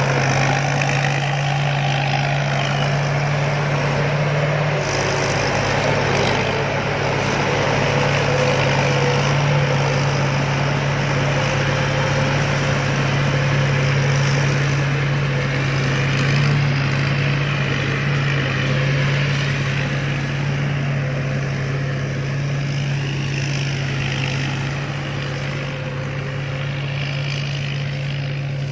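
Combine harvester's diesel engine running steadily with a constant low hum.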